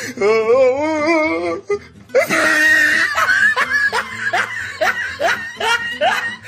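Laughter over music: a long wavering laugh, then a run of quick rising laughs, roughly three a second.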